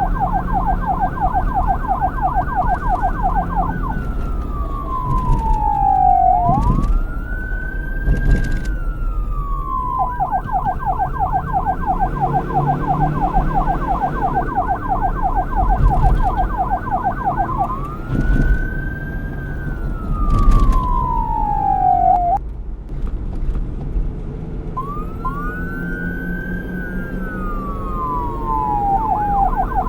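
Police car's electronic siren switching back and forth between a fast yelp and a slower wail several times, the wail made of long falling and rising sweeps. A low rumble runs underneath.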